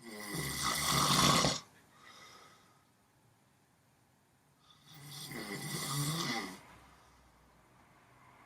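Snoring: two loud snores about five seconds apart, each lasting under two seconds, with quiet breathing between them.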